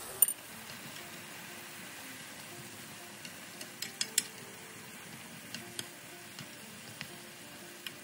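Mushrooms frying in sesame oil in a pan with a steady low sizzle, stirred with a utensil that clicks and knocks against the pan now and then. One sharp knock comes right at the start, and a quick run of clicks comes about halfway through.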